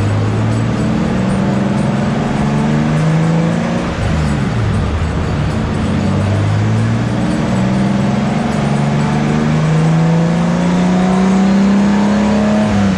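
BMW E36's built S50 straight-six at full throttle on a chassis dyno, pulling through the gears: the engine pitch climbs, drops at a gear change about four seconds in and again around eight seconds, then rises slowly in a long final pull and falls away near the end as the throttle closes.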